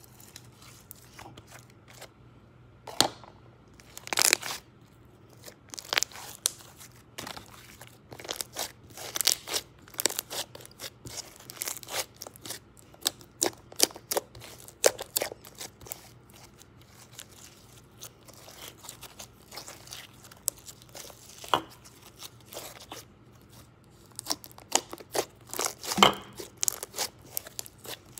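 Glossy slime being squeezed, stretched and poked by fingers, giving irregular wet clicks and pops, busiest in several short flurries.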